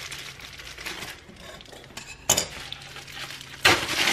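Plastic mailer packaging crinkling and rustling as it is handled and an item is unpacked. Two sharp, louder crackles come about two and a half and three and a half seconds in.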